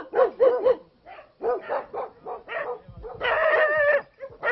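Several dogs yapping and barking in a quick run of short, high yelps, with one longer whining call about three seconds in.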